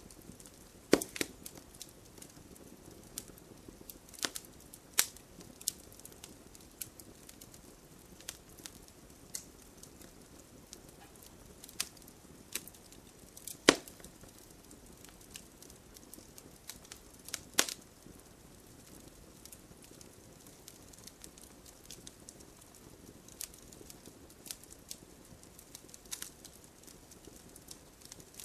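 Campfire burning: a soft steady hiss with irregular sharp crackles and pops of burning wood, a few louder snaps now and then.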